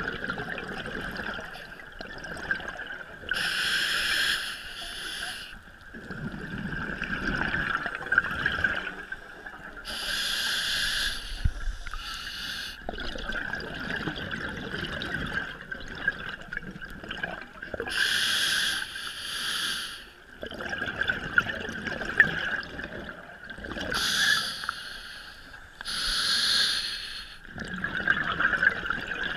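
Scuba diver breathing through a regulator underwater: a hiss on each inhale, then a longer low bubbling rush of exhaled air, about four breaths in all. A steady high tone runs underneath.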